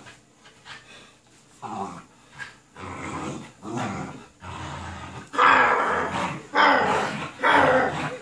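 American Bully puppy growling in play while tugging on a toy, in a string of rough bursts that get much louder about five and a half seconds in.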